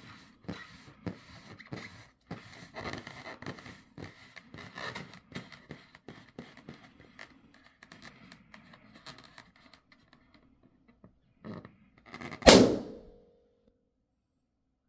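A rubber balloon being scratched, a run of short scratches and squeaks on its skin, then it bursts with one loud pop about twelve seconds in.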